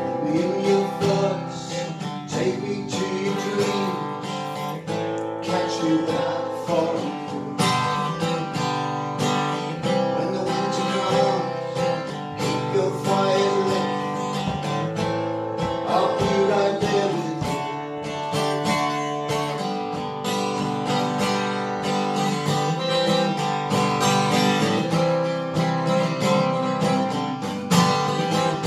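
Steel-string acoustic guitar strummed and picked steadily as song accompaniment, with a man singing over it in places.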